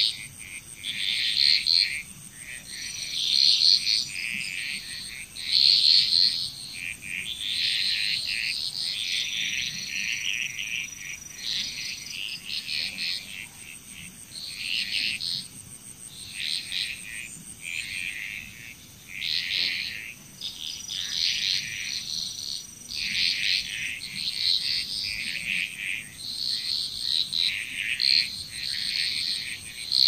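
Frog chorus: many frogs calling in overlapping bursts, about one burst a second, swelling and fading in turn. A thin, steady, high trill runs underneath and stops about halfway through.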